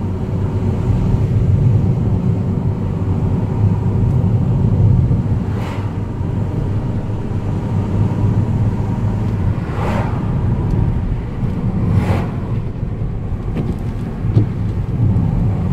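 A car running at driving speed, giving a steady low engine and road rumble. Three brief louder rushes come through, about six, ten and twelve seconds in.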